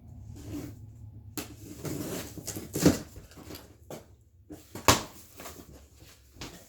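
Heavy cardboard-wrapped firework cakes being handled and set down: rustling and scraping, with two sharp knocks about three seconds in and about five seconds in.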